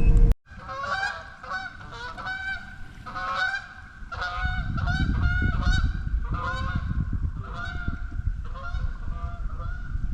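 A machine's running cuts off suddenly at the very start. Then geese honking, short calls repeating about twice a second and overlapping one another throughout.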